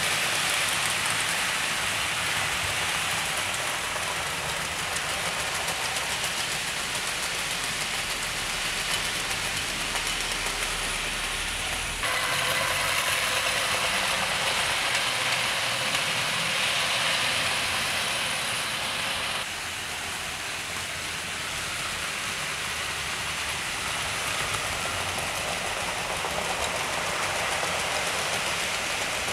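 Two 00 gauge model steam locomotives, rebuilt West Country class Pacifics, running round a layout with freight wagons: a steady whirring rush of small electric motors and metal wheels on the rails. Both are running fast with light loads. The sound changes abruptly about twelve seconds in and again about twenty seconds in.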